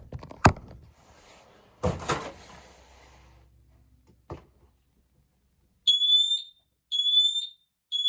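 A sharp click and some rustling as the smoke alarm is handled, then the smoke alarm sounds: three loud, high-pitched beeps about a second apart, each rising slightly in pitch. The beeping shows the alarm is now working.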